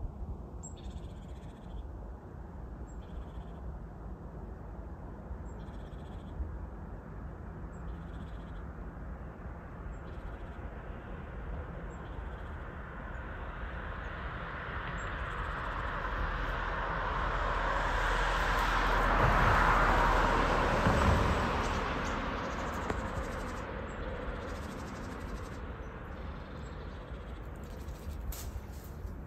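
Outdoor background noise with faint short chirps every couple of seconds. A vehicle passes: its sound swells up from about halfway, is loudest about two-thirds of the way in, then fades away.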